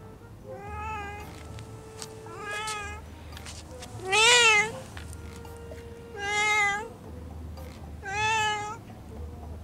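Black stray cat meowing five times, about one call every two seconds, each call rising then falling in pitch; the third meow is the loudest.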